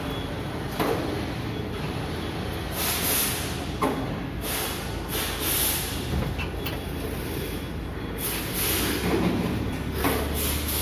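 Factory assembly-line noise: a steady low machinery hum with a couple of sharp metallic knocks and longer bursts of hissing, at an excavator assembly line.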